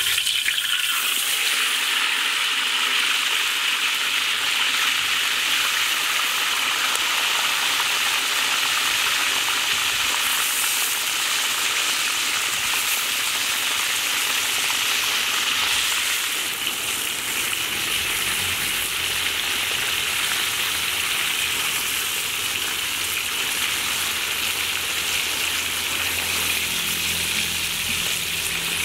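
Hot oil sizzling steadily around giant trevally steaks frying in an aluminium wok.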